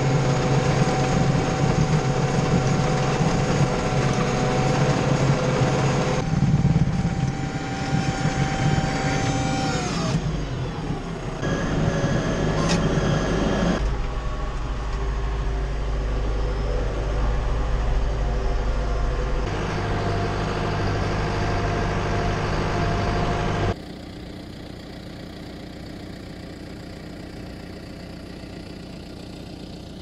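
John Deere 5085M tractor's diesel engine running steadily under load while pulling a harrow, with the revs dropping about ten seconds in. Near the end it is quieter, heard from farther off.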